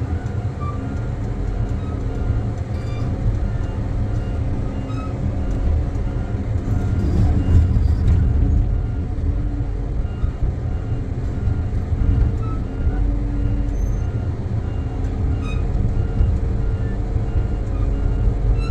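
Tracked feller buncher's diesel engine running under load as the machine travels forward on its tracks, heard from the operator's cab as a steady low rumble. Faint short high chirps repeat at regular intervals through it.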